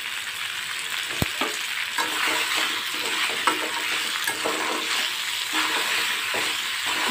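Boiled macaroni with tomato frying in a kadai with a steady sizzle, while a metal spoon scrapes and turns it against the pan. There is a single sharp knock about a second in.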